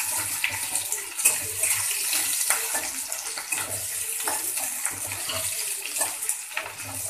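Sliced onions sizzling as they fry in hot oil in a metal kadhai, with a metal spatula scraping and clicking against the pan now and then as they are stirred.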